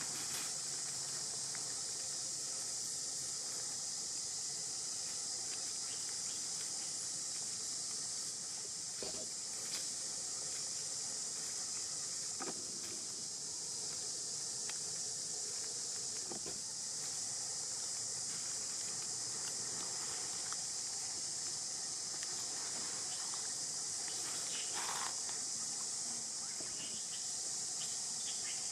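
A steady, high-pitched drone of insects fills the background without a break. A few faint short rustles and ticks sound over it at scattered moments.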